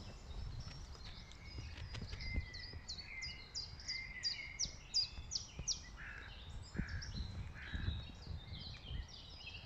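Small songbirds singing, with a quick run of repeated falling notes in the middle, over a faint low rumble.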